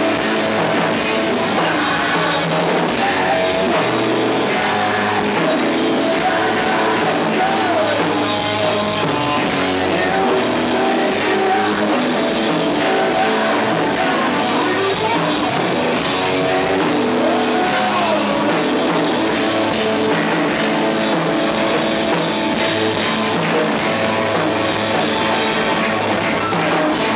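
Live rock band playing loud: electric guitars and a drum kit, with a few notes bent up and back down along the way.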